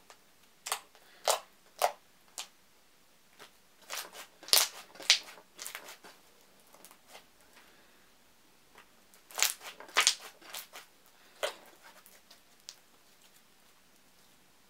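Thick, heavy glitter slime being squeezed and stretched by hand, giving a scattered series of sharp sticky pops and clicks, bunched together about four to five seconds in and again around ten seconds in.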